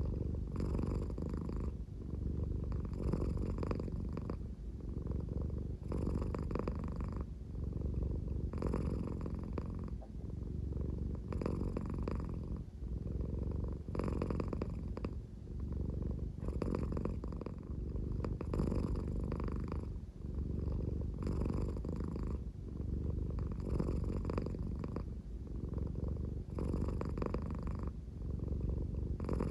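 American Shorthair cat purring slowly, a low purr that sounds like snoring, with a louder, rougher phase coming round about every two and a half seconds.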